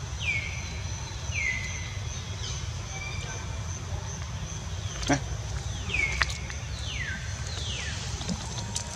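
Short high-pitched animal calls, each dropping in pitch. They come three in the first few seconds and four more close together later, over a steady high whine and a low rumble, with a couple of sharp clicks in between.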